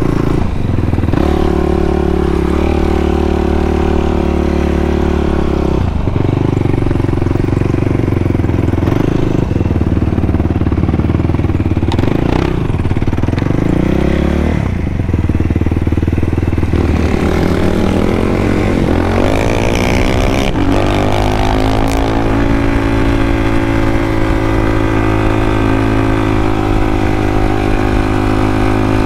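Sport ATV engine being ridden hard, revving up and easing off again and again, with several climbs in pitch as it pulls through the gears, then holding a fairly steady pitch in the last third.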